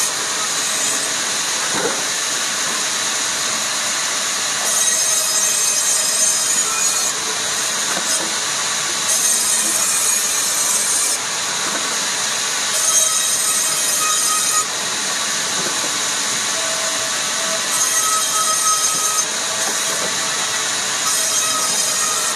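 Woodworking saw running and cutting rubberwood: a steady machine noise, with a harsher hiss that comes and goes every few seconds.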